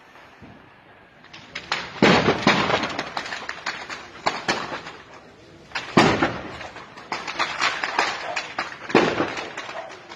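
Stockpile of fireworks exploding in a polvorín: after a quieter first second, a dense run of sharp cracks and bangs, with the heaviest blasts about two, six and nine seconds in, each trailing off into crackling.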